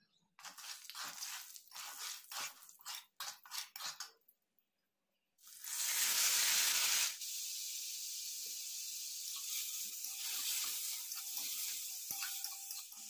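Hot oil in a wok spluttering in quick bursts as turmeric goes in. After a short break, boiled snails tipped in from a colander set off a loud sizzle that settles into steady frying, with a few light clinks of the spatula stirring.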